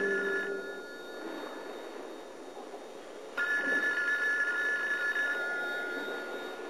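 Bedside telephone ringing: one ring trailing off at the start, then a second ring about three and a half seconds in that lasts about three seconds.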